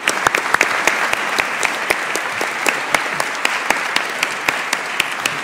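Audience applauding, many hands clapping at once in a steady patter with a few sharper claps standing out.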